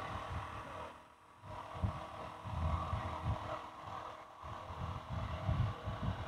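Handling noise from sheets of paper being moved close to the phone's microphone: soft, irregular low bumps with a faint rustle, briefly dropping almost silent about a second in.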